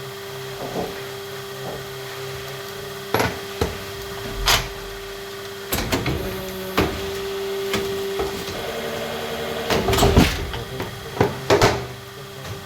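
Factory machinery humming steadily with irregular sharp knocks and clatters, the loudest cluster about ten seconds in.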